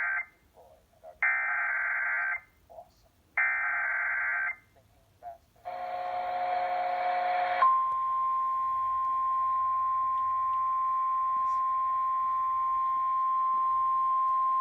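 Emergency Alert System SAME header: three screechy bursts of digital data tones, each about a second long, followed by a short buzzy burst. About eight seconds in, the National Weather Service's steady single-pitch warning alarm tone starts and holds. Together they signal an incoming severe weather warning.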